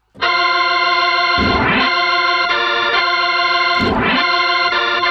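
Hammond organ playing loud, sustained chords with a bright, shouty drawbar setting. The chord changes twice.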